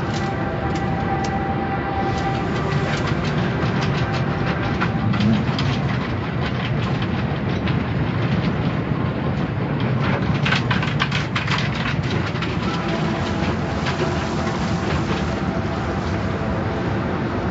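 Automatic car wash machinery running: a steady, loud rumble and spray, with a run of sharp clattering knocks about two-thirds of the way through.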